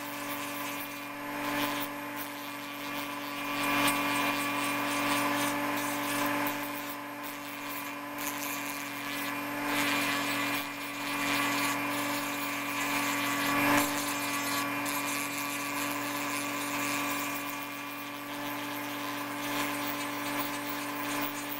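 Dremel rotary tool with a heavy-grade sanding barrel running at a steady whine while it is pressed lightly against a plastic puzzle piece, rasping off excess weld putty. The scraping swells and eases as the piece is worked against the spinning drum.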